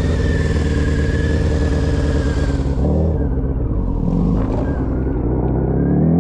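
Motorcycle engine running under throttle while being ridden, with a rushing hiss of air that stops about halfway through; near the end the engine note climbs as the rider opens the throttle.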